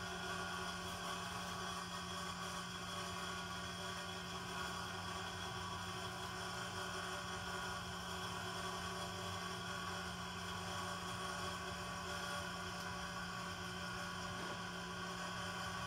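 Steady electric hum and whir of a running fan or motor, one low tone held throughout over a faint hiss.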